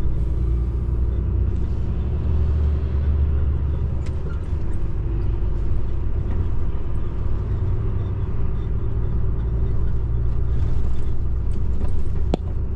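Heavy truck driving at road speed, heard inside the cab: the diesel engine and tyre and road noise run steadily, mostly low in pitch, with a couple of faint clicks near the end.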